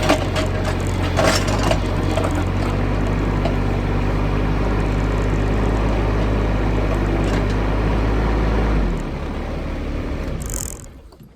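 Excavator's diesel engine running steadily, with a few sharp cracks in the first two seconds as it breaks into the termite mound. About nine seconds in the engine note drops, and the sound then fades away.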